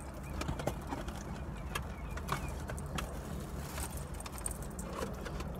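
Eating and food-handling noises, with scattered small clicks and ticks of biting, chewing and handling takeout food, over a steady low hum inside the car cabin.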